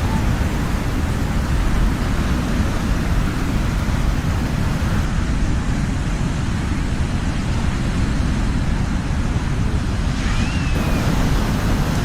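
Ocean surf recorded at the shore: a steady rush of waves with a deep rumble underneath. A brief faint high chirp about ten seconds in.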